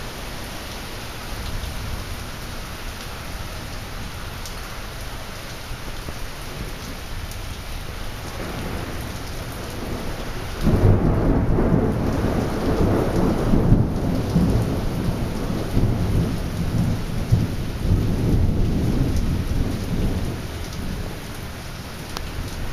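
Steady rain falling. About halfway through, a sudden loud thunderclap breaks in and rumbles on for several seconds before fading back under the rain.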